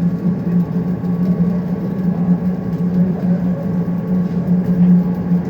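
Steady, loud low hum and rumble of welding-shop machinery, unbroken throughout.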